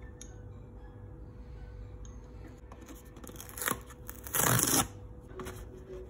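Hands handling containers on a cloth-covered surface: a light click near the start, then rustling of a cardboard tea box that builds to its loudest, a half-second rustle, about four and a half seconds in.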